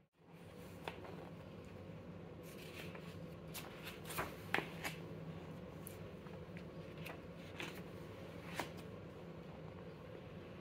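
Paper pages of a user manual booklet being handled and turned: a few short rustles and crinkles, the loudest about four and a half seconds in, over a faint steady low hum.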